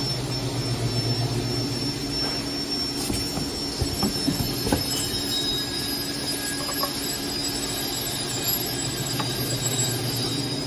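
Steady hum of running machinery with a steady high-pitched whine over it, with a few light knocks about four to five seconds in as parts are handled.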